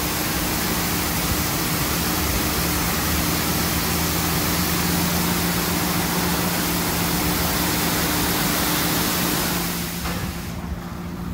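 Ryko Pulse touch-free car wash spraying high-pressure water over a car to rinse off the foam: a steady hiss of spray over a low, steady hum. About ten seconds in, the spray cuts off and the hiss drops away.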